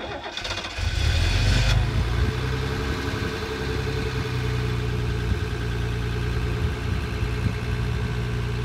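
A Mercedes R107 280SL's straight-six engine starting: it catches with a brief flare about a second in, then settles into a steady idle.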